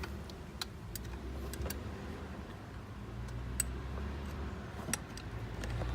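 Scattered light clicks and ticks of metal tools and parts being handled around the generator's oil drain plug, over a steady low hum.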